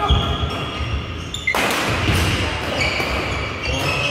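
Badminton rally: sharp, echoing cracks of rackets hitting the shuttlecock, the loudest about a second and a half in, with shoes squeaking on the wooden court floor between shots.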